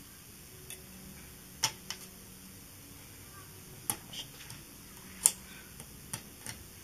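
Irregular sharp clicks and light knocks, about seven in all with the loudest just after five seconds in: a knife and red onions being handled and set down on a wooden cutting board during food preparation.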